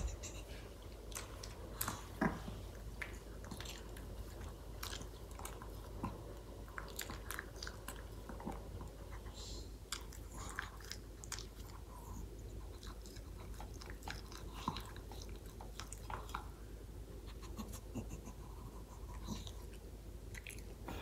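Maltese dog eating from its bowl: irregular crunching and chewing of its food, in many small clicks.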